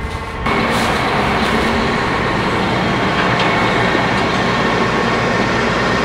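Combine harvester running while harvesting, heard close by: a loud, steady machine noise with a constant whine. It cuts in suddenly about half a second in.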